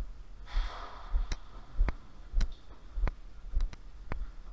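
A short breath out close to the microphone about half a second in. After it comes a string of sharp clicks about every half second, over low, regular thuds.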